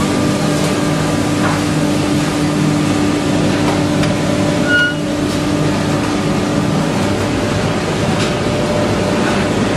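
Sawdust wood block making machine running, a steady mechanical drone with a constant hum that drops away about halfway through.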